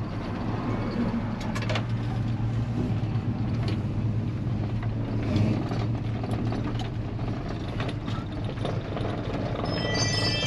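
Chevy C-10 pickup's engine and exhaust running with a steady low drone while the truck drives slowly, heard from inside the cab, the exhaust toned down by newly fitted mufflers. Chime-like music comes in near the end.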